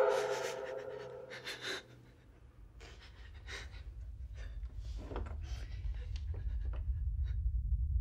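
A person's short breaths and gasps, coming one at a time with gaps between them, while a low rumble slowly builds underneath.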